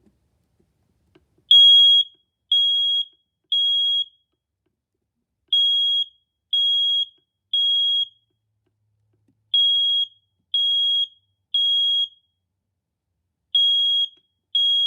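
Smoke detector sounding its alarm: loud, high-pitched beeps in groups of three with a short pause after each group, the temporal-3 evacuation pattern. It starts about a second and a half in and runs through four rounds.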